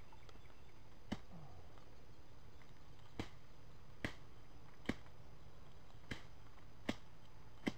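Dry twigs and small dead sticks snapping, seven sharp cracks at irregular intervals about a second apart, as brush is broken up by hand while clearing undergrowth.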